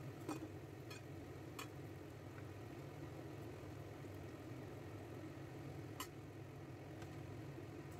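Rghaif pastry squares frying in a pan of oil over a steady low hum, with sharp clicks of metal forks against the pan as the pieces are turned: three in the first two seconds and one more about six seconds in.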